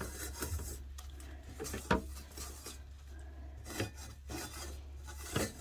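Small scrub sponge scrubbing stuck-on food off the inside of a stainless steel pot: a rasping rub in repeated short strokes, with one sharper scrape about two seconds in.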